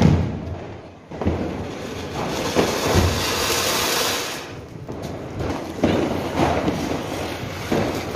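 Flower-pot firework (anar) hissing steadily as it sprays its fountain of sparks. The hiss starts about a second in and stops suddenly at about four and a half seconds.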